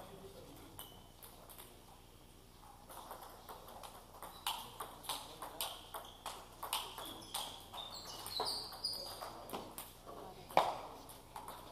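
Table tennis rally: the celluloid ball clicking off the paddles and bouncing on the table, about two sharp taps a second once play starts about 3 seconds in. The hardest hit comes near the end.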